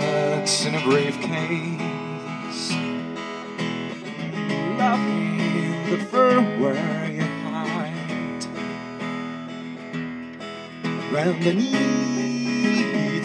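Acoustic guitar strummed, with a man's voice singing wavering notes over it in places, around the middle and again near the end.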